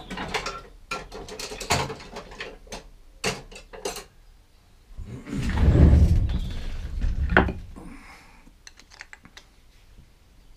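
Hand tools clicking and clattering as they are picked up and handled on a workbench. A louder rumbling shuffle comes in the middle and ends in a sharp click.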